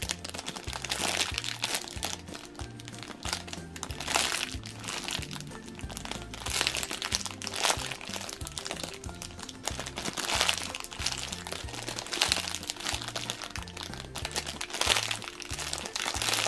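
Clear plastic bags crinkling in irregular bursts as packaged squishy toys are handled and turned over, over background music with a steady bass line.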